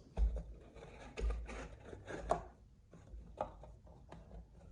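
Unpacking an old reel from its cardboard box: four separate knocks, with rubbing and rustling of the packaging between them.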